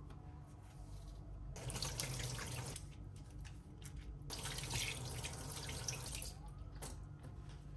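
Kitchen sink tap running in two short spells, about a second near the start and two seconds in the middle, water splashing over hands as they are wetted and then rinsed of soap. A short click comes near the end.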